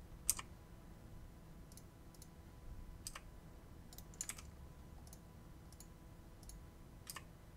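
Faint computer mouse clicks and keyboard key presses, about ten sharp clicks at irregular intervals, a couple of them close together around the middle.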